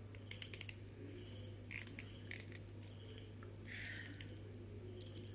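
Faint, irregular clicks and light scrapes of steel trace wire being wrapped by hand around the shank of a metal power swivel, handled close to the microphone.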